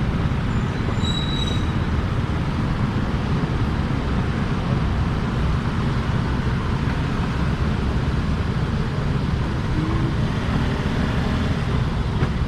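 Steady low outdoor street noise, a continuous rumble of passing traffic with a faint short high tone about a second in.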